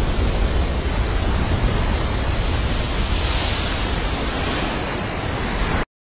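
Steady roar of a huge breaking ocean wave with wind noise, cutting off abruptly near the end.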